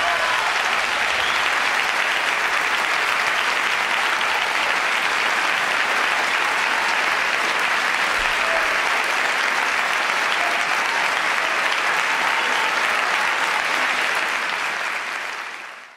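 Audience applauding steadily, a dense even clapping that fades out near the end.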